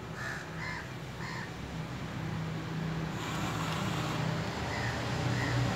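A crow cawing three times in quick succession, then twice more faintly near the end, over a steady low hum that gets louder about halfway through.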